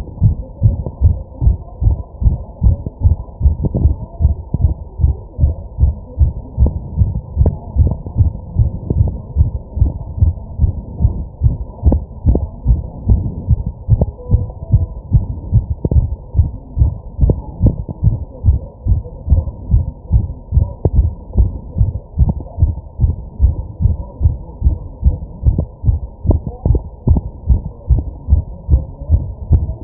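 A human heartbeat heard close up: fast, deep, muffled thuds in a steady, even rhythm.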